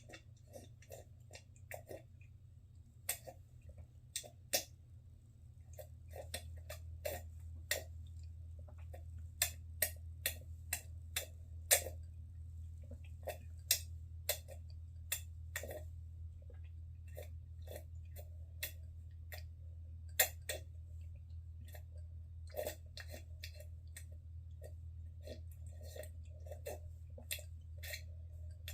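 A person slurping and gulping hot coffee: a run of short, sharp, irregular mouth and swallowing clicks, a few a second at their busiest, over a steady low hum.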